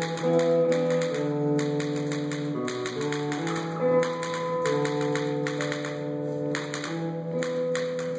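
Recorded music with held instrument notes changing in a bouncy melody, over rapid, sharp clicking like typewriter keys or tapping.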